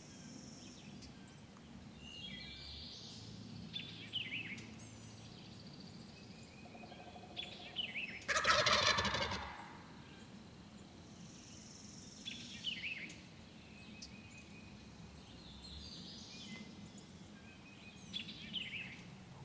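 A wild turkey gobbler gobbles once, loud, about eight seconds in: a rapid rattling call about a second and a half long. Songbirds sing on and off throughout.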